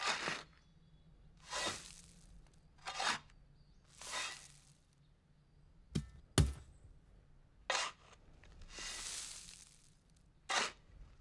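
Shovel strokes cutting into soil and tossing it, repeated about once every second and a half, with two sharp knocks about six seconds in.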